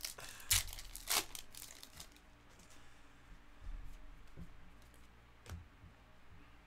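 A foil trading-card pack torn open, its wrapper crinkling, loudest in the first two seconds. This is followed by softer rustles and taps as the cards are slid out and handled.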